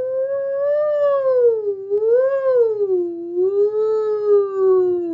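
A woman singing one long unbroken "ooo," her pitch gliding up and down to trace a wavy high-and-low path. It rises early on, dips, swells to a higher bump, dips again, then slides gradually lower near the end.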